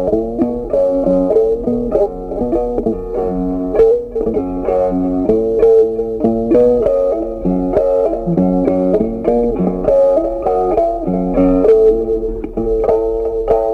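Background music: a plucked guitar playing a steady run of notes.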